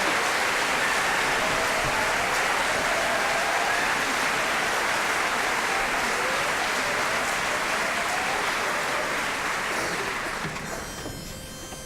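Audience applauding with some cheering, the applause dying away about ten seconds in. As it fades, a steady pitched note begins.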